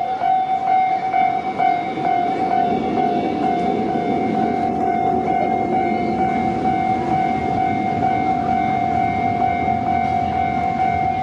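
Japanese railway level-crossing warning bell ringing continuously with a regular pulse, while a train rumbles past over the rails from a few seconds in.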